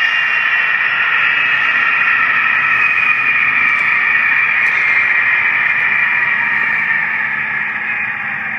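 Sound decoder in an HO scale GP60 model diesel locomotive playing a steady diesel engine whine, several tones together that slowly fall in pitch. It fades from about seven seconds in.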